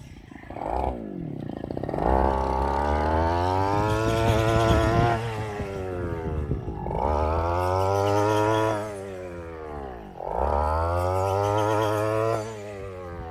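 Engine of a rice-cutting machine revving up and easing off again, about three times over, running between revs.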